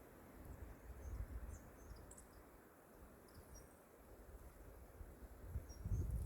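Faint outdoor ambience: a low rumble with scattered faint, short high chirps and ticks. The rumble grows louder near the end.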